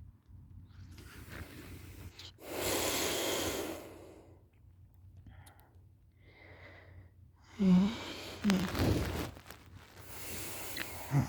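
Open-mouthed snoring of a person asleep on her back: a long, rough breath about two seconds in, then two short, loud, low snorts in quick succession near the middle, followed by more rough breathing. The snorer likens the sound to a tiny tractor.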